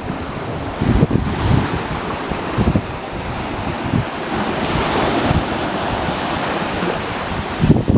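Wind-driven waves washing on a lake, with strong wind buffeting the microphone in irregular low gusts; the wash of water swells to its loudest around the middle.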